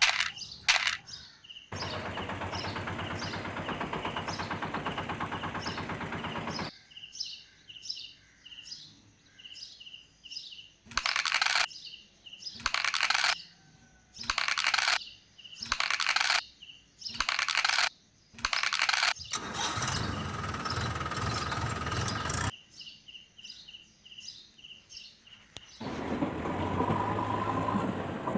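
Battery-powered toy vehicle sound effects: stretches of a steady electronic engine-like drone alternate with quick repeated high chirping beeps. In the middle comes a run of loud blasts about once a second.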